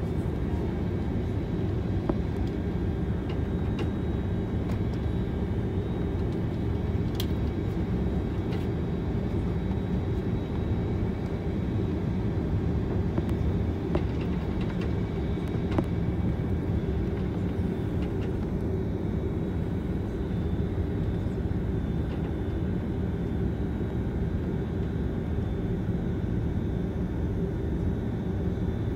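Steady rumble in a jet airliner's passenger cabin while taxiing, engines at low thrust, with a faint steady high whine and a few light clicks.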